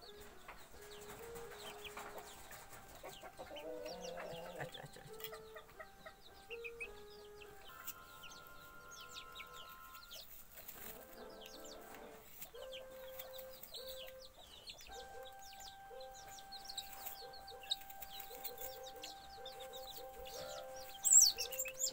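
Young chickens peeping in short, high chirps, over and over, with one louder, sharper chirp near the end.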